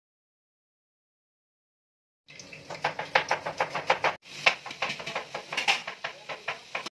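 After about two seconds of silence, whole spices and then sliced onions fry in hot oil in a pot: a dense, irregular crackling with many sharp pops, broken briefly about four seconds in.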